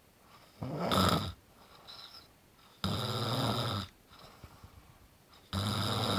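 A sleeper snoring: three snores, each about a second long, coming roughly every two and a half seconds, with quiet between them. The last snore is still going at the end.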